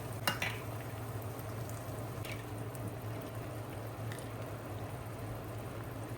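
Water boiling steadily over a low constant hum, with a sharp click near the start and a fainter click about two seconds in.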